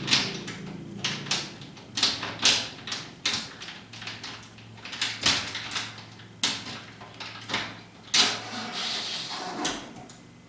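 Garage door quick release lock and its release cable being tested: a string of irregular clicks, knocks and rattles from the lock and door hardware, over a low steady hum.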